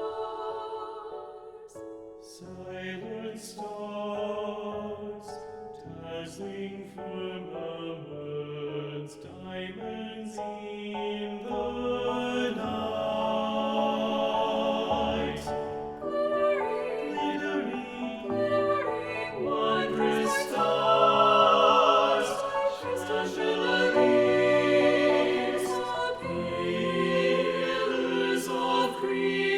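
Mixed SATB choir singing a slow, sustained passage with piano accompaniment. It opens on a soft held chord and grows steadily louder.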